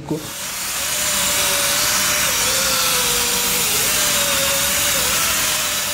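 Air-powered orbital sander running on a panel: a steady loud hiss with a whine that wavers slightly in pitch, building up over the first second.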